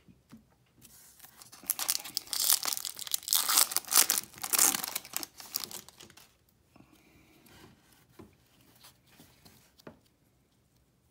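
Foil wrapper of a 2019 Topps Series 1 baseball card pack being torn open and crinkled for several seconds, followed by softer rustling as the cards are slid out and handled.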